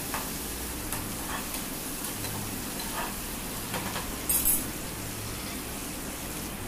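Sliced onions, tomatoes and green chillies sizzling in hot oil in an aluminium kadai, stirred with a perforated metal spoon that scrapes the pan a few times. A brief, louder clatter comes a little past four seconds in.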